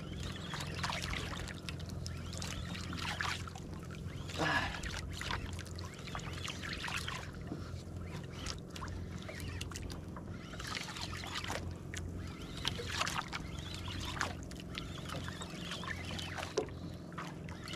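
Water lapping and splashing against the hull of a small outrigger boat on choppy sea, in irregular slaps, over a steady low hum.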